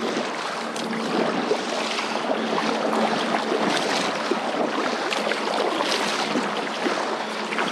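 Kayak paddle blades dipping and pulling through shallow water, with continuous splashing and swishing of water along the hull.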